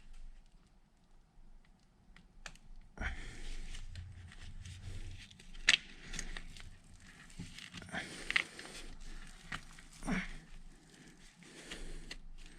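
Hands handling parts at a workbench: a few faint clicks, then from about three seconds in, steady rustling with many sharp clicks and knocks.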